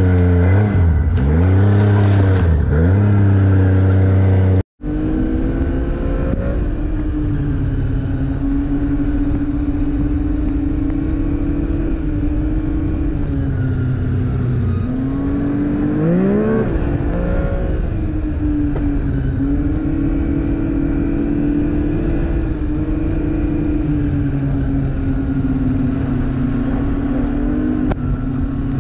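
Arctic Cat snowmobile engine heard from the rider's seat, revving up and down for the first few seconds. After a brief cut about five seconds in, it runs steadily at trail speed, easing off and then revving up quickly about halfway through.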